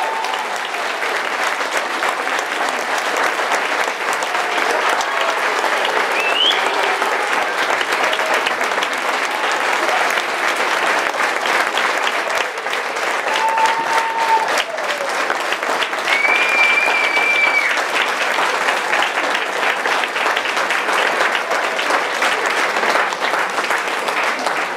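Audience of schoolchildren and adults clapping steadily. A few voices call out in short held cries over the applause.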